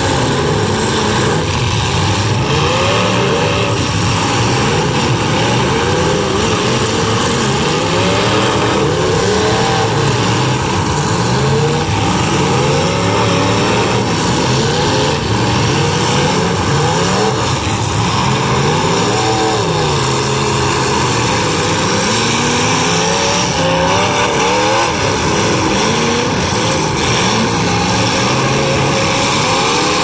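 Several demolition derby hobby stock cars' engines revving hard at once, many overlapping engines rising and falling in pitch as the cars push and ram each other.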